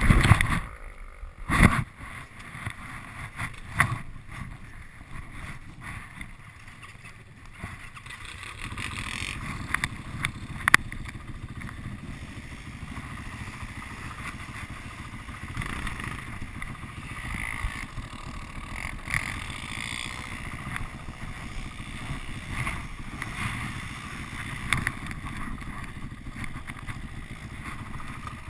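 Honda TRX450R quad's single-cylinder four-stroke engine running as it pushes through deep snow, heard from the handlebars. A few sharp knocks come in the first two seconds. The engine grows louder and steadier from about eight seconds in.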